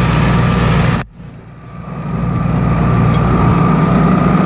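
Tractor engine running steadily under load, with a thin steady whine over its low hum. About a second in the sound drops away suddenly and builds back up over the next second or two.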